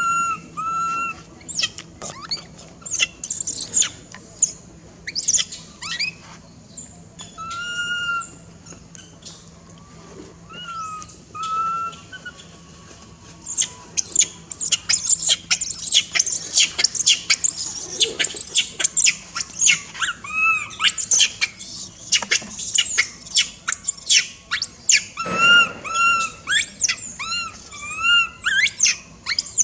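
Baby macaques calling: short high-pitched coos that rise and fall, spaced out through the first half, then a dense run of rapid high squeaks and chirps from about halfway through, with the coos returning near the end.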